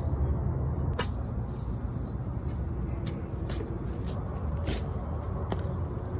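A spade chopping into lawn sod and soil, about five sharp strikes at uneven intervals, over a steady low rumble.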